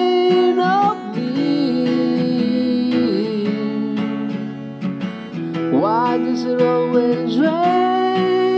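Acoustic guitar strumming the song's chords. A sung note is held and slides up at the start, and held, wordless vocal notes come back in from about six seconds in.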